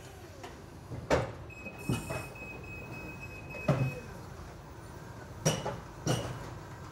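A STILL R60-30 electric forklift working at a lorry's side. There are about five sharp clanks and knocks from the forks and a wire-mesh pallet cage, and a steady high electric whine from the forklift runs for a couple of seconds in the middle.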